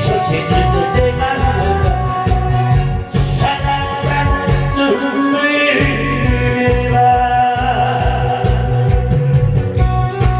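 Loud amplified music over a PA, with a heavy steady beat and a melody line on top. The bass beat drops out for about a second around five seconds in.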